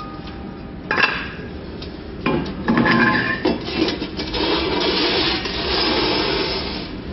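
Irregular knocks and clattering with scraping and rubbing, as of hard parts being handled and knocked together. There is a sharp knock about a second in, and the clatter grows busier from about two seconds in.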